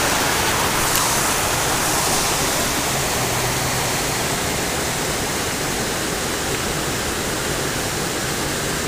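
Creek water rushing steadily over rocks in a small whitewater cascade.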